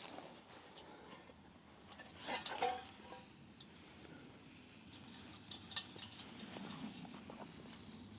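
Metal clinking and clattering of camp stove gear being handled, loudest about two seconds in where a piece briefly rings, with scattered lighter clicks after.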